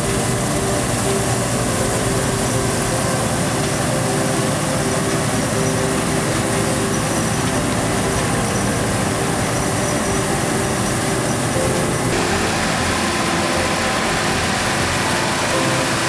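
Deutz-Fahr 6090 HTS combine harvester running steadily as it cuts and threshes barley: an even, unbroken machine noise with steady tones. The sound shifts slightly about twelve seconds in.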